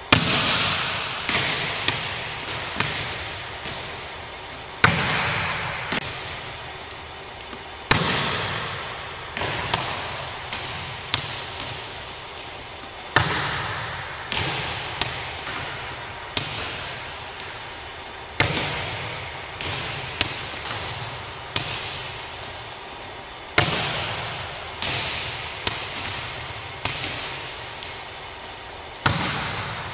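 Volleyball serves: a hand strikes the ball with a sharp smack seven times, about every four to five seconds. Each hit is followed by a few fainter bounces of the ball on the hardwood gym floor, all echoing in the large gymnasium.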